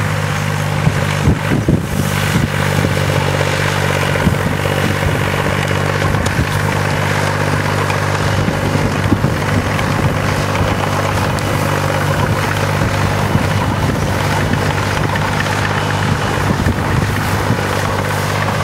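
John Deere 350 crawler dozer's engine running steadily under load as it pulls a disc, with a few brief knocks over it.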